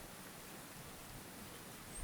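Faint, steady hiss of quiet forest ambience, with a short high bird chirp right at the end.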